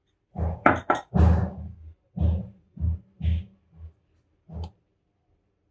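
Irregular dull bumps and rustles of hands working olive slices onto a pizza on a plastic plate: about eight short knocks in the first five seconds.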